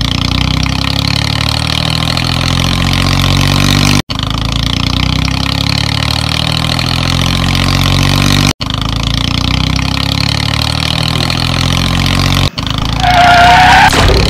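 Engine sound effect of a motor vehicle running steadily, cut off and restarted about every four seconds as a looped clip. Near the end a loud high-pitched tone sounds for about a second.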